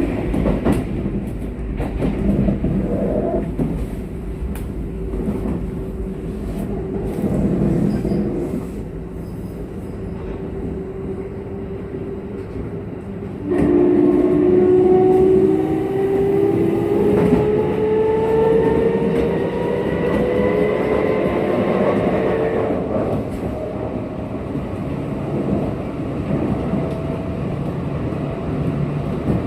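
Running sound of a Kintetsu 1233 series electric train heard from on board, with wheel-on-rail clatter. About halfway through, the noise steps up and a whine of several tones climbs slowly in pitch for several seconds as the train powers, then cuts off abruptly. This set is singled out as a car with an abnormal noise.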